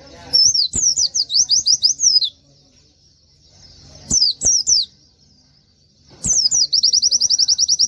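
Pleci (white-eye) singing in three bouts of high, fast, downward-sweeping notes. The last bout, near the end, is a rapid even trill of repeated notes. A few sharp taps are heard along with the bouts.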